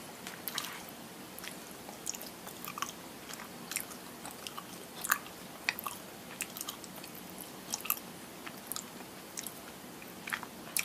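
A person chewing a soft snack cheese with the mouth closed, making small irregular wet clicks.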